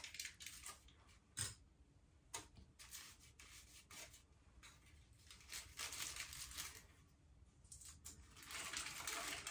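Aluminium highlighting foils crinkling and rustling faintly as they are lifted, brushed and folded. The sound comes in scattered short bursts with a few light clicks, and is busiest near the end.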